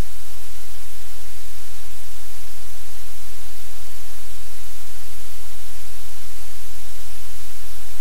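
Loud, steady hiss of static with a low hum underneath, unchanging throughout.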